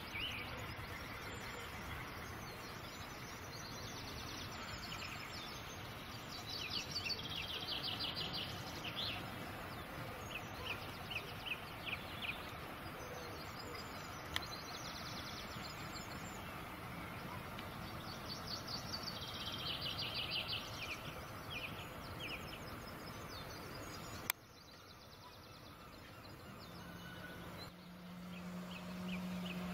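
Birds chirping over a steady distant rumble from a slow-moving Class 47 diesel locomotive. Near the end the level drops suddenly, then a steady low engine hum comes in and grows louder as the locomotive draws closer.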